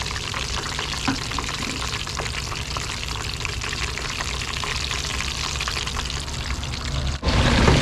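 Pork belly deep-frying in hot oil during its second frying for lechon kawali: a steady sizzle full of fine crackles and pops. It cuts out for an instant near the end and comes back louder.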